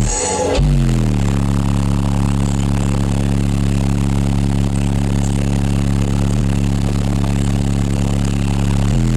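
Twelve 12-inch Sundown ZV4 subwoofers playing a loud, distorted low bass tone. It drops in pitch about a second in, holds steady, and shifts near the end.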